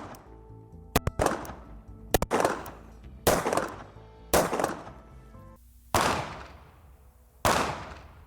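9mm pistol shots fired into a wooden target: a string of sharp cracks, mostly about a second apart with a quick double near the start, each with a short fading tail. Background music plays underneath.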